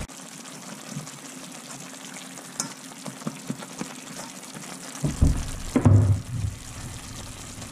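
Rabbit pieces frying in oil in a stainless steel pan: a steady sizzle with small scattered pops, and a few louder knocks about five seconds in.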